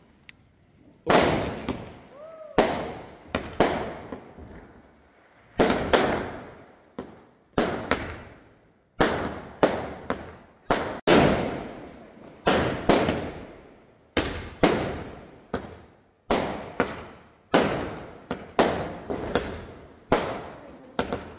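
Aerial fireworks bursting in a long run, a loud bang every one to two seconds and sometimes two close together, each dying away over about a second.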